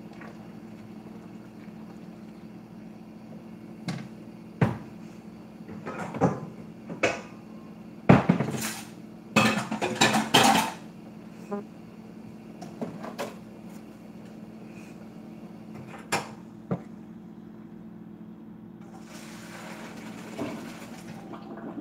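Pots and dishes clattering at a kitchen sink, with a cupboard shut: a string of knocks and clanks, busiest about halfway through, over a steady low hum.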